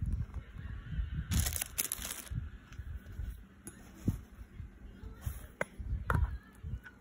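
Handling noise from a phone held close over a meal container: uneven low bumps, a short burst of rustling about a second and a half in, and a couple of light clicks near the end.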